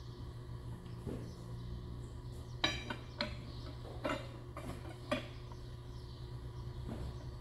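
Hand tools clinking against a John Deere 4010's bare engine block and crankshaft bearing caps: four sharp metallic clinks, each with a short ring, spread over a few seconds in the middle, over a steady low hum.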